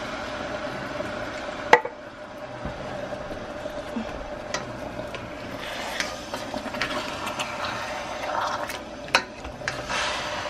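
Coconut milk simmering and bubbling in a skillet around pan-fried fish and peppers, while a spoon scrapes and taps the pan as it bastes. There is a sharp clack about two seconds in and another near nine seconds, over a thin steady hum.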